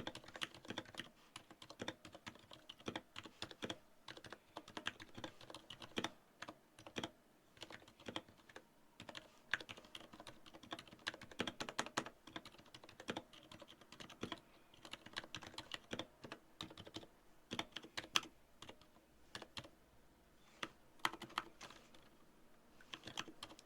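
Typing on an Anne Pro 2 mechanical keyboard with Aliaz silent tactile switches: a steady run of quick, irregular keystroke clicks. The switches are unlubricated, which the typist says leaves some spring pinging.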